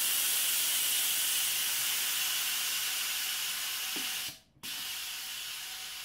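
Pressurized CO2 hissing out of a FermZilla fermenter as it is vented down. The hiss breaks off briefly a little past four seconds in, then resumes weaker and slowly fading.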